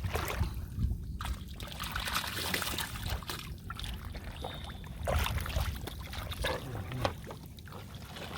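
Shallow muddy water sloshing, splashing and trickling in irregular bursts as hands work through the mud and water of a flooded rice field.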